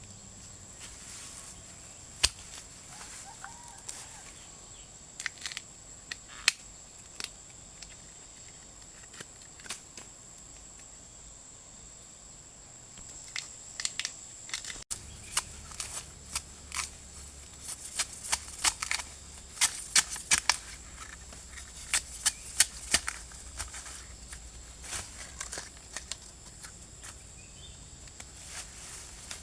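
Irregular sharp snaps and cracks, a few at first and then coming thick and fast through the second half, over a steady high-pitched whine.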